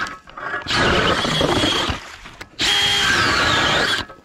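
Brushless cordless drill driving an ice auger down through lake ice: a steady motor whine over the grinding of the cutter. It runs in bursts of about a second and a half, stopping and starting again twice.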